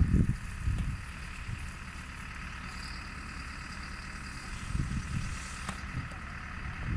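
Fire engine running steadily at the scene. There is a steady hiss and hum, with a few brief low rumbles just after the start and about five seconds in.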